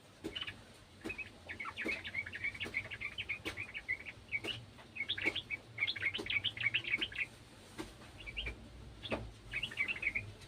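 Sooty-headed bulbul chattering: a fast run of short notes that stops about seven seconds in, then two shorter bursts near the end, with sharp clicks throughout.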